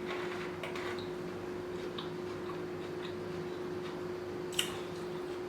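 Scattered soft mouth clicks and smacks of someone chewing food, with one sharper click about four and a half seconds in, over a steady hum.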